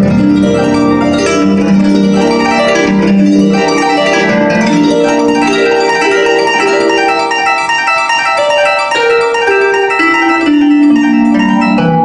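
An ensemble of Paraguayan harps playing together: quick runs of plucked notes over held bass notes.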